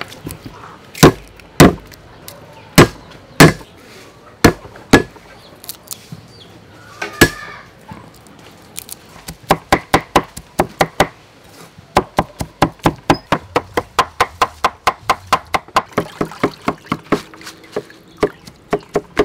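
Cleaver chopping garlic cloves on a thick wooden chopping block. First come a handful of separate heavy strikes, then from about halfway a fast, steady run of chops, about four to five a second, with a few last strikes near the end.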